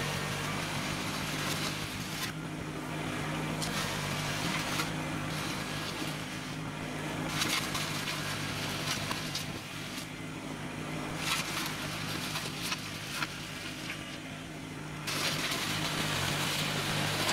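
Kubota BX compact tractor's three-cylinder diesel engine running steadily while it drives over and spreads gravel with its lowered front loader bucket; gravel crunches and scrapes in waves, with a few sharp clicks partway through.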